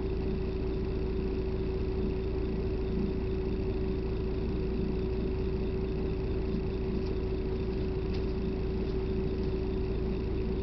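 Steady rumble and hiss inside a moving vehicle, with one constant hum above it.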